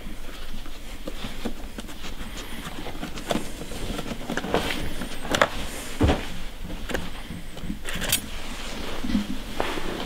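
Scattered clicks and knocks of a Phillips screwdriver turning the captive screws of an iMac's metal RAM access plate, with handling of the plate.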